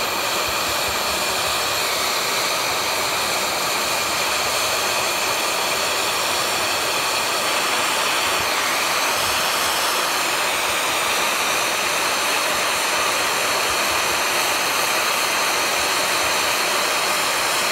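Small handheld propane torch burning with a steady hiss, its flame held against an aluminum boat hull to melt a fluxless aluminum brazing rod into a hole.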